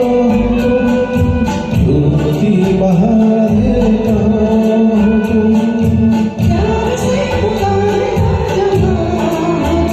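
Karaoke performance of an old Hindi film duet: long held sung notes over a recorded backing track with a steady beat.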